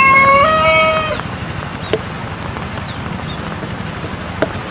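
Pelung rooster crowing: the long, held final note of its crow ends about a second in. After that there is only steady background noise with a couple of faint taps.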